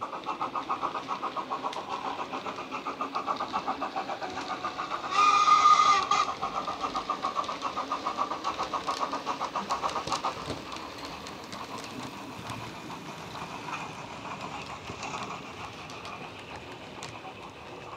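Sound decoder playing a 3-cylinder LMS steam locomotive sound file through a 25x25x7 mm megabass speaker in a Bachmann Patriot model's tender: rapid, even chuffing. A short whistle blast about five seconds in is the loudest part. The chuffing drops away about ten seconds in, leaving a quieter steady running sound with faint clicks.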